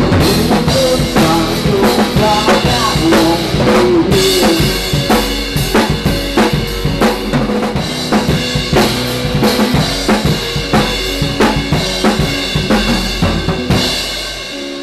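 A band playing a song at rehearsal, the drum kit loud and in front with a steady beat of kick and snare, and pitched instruments underneath.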